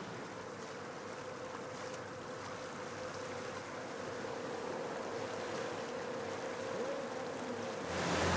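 Outboard engine of a rigid inflatable boat running on open water: a steady hum over wash and wind. About eight seconds in it jumps abruptly louder to close engine noise and rushing wake water.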